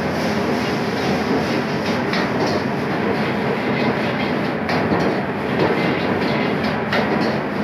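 Wok stir-frying over a high-flame gas burner: a steady burner noise and sizzle with irregular clanks and scrapes of a metal spatula against the wok.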